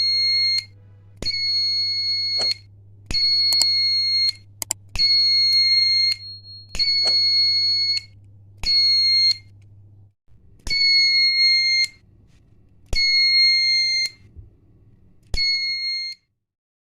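A homemade fire alarm's 5 V buzzer, driven by a BC547 transistor from a photodiode sensor, sounding a steady high tone in about nine separate beeps of half a second to a second and a half each, starting and stopping at uneven intervals as the sensor is triggered. Each beep starts with a click.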